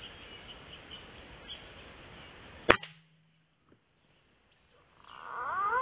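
A single sharp air-rifle shot about two-thirds of the way in, fired through the scope at a bird in a fruiting tree. Near the end, whistled calls with pitch that glides up and then levels off grow louder.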